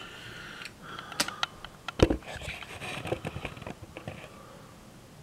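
Handling noise as a 1/64 scale diecast model car is moved and set down on a CD: a run of small clicks and taps with light rustling, and one louder thump about two seconds in.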